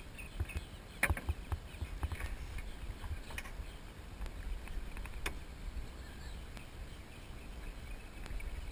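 Low rumble of wind on the microphone and water moving around a small jon boat, with a few sharp clicks from the boat or tackle about a second in, near three and a half seconds and near five seconds.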